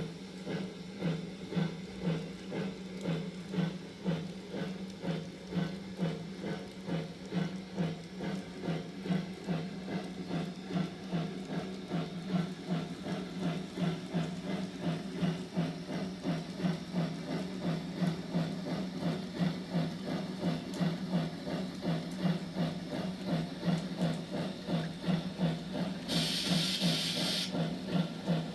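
Model railway sound box playing a steam locomotive's running sound: steady, rhythmic chuffing. Near the end there is a short burst of steam hiss.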